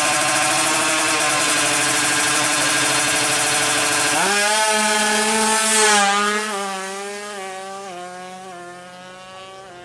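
Tuned two-stroke drag-bike engine held at high revs, then launching about four seconds in. It screams up through the gears in a series of rising notes, each one dropping at a shift, and grows fainter as the bike pulls away.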